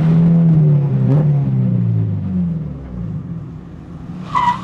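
Jackson Racing–supercharged Acura Integra GS-R engine running loud, its revs falling after about a second and then settling. Near the end a steady high squeal starts: the supercharger belt slipping.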